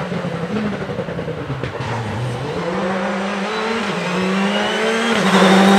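Citroën C3 rally car's engine accelerating hard towards the listener. Its pitch climbs, drops at a gear change about four seconds in, climbs again and drops at another change near the end, growing louder as the car comes close.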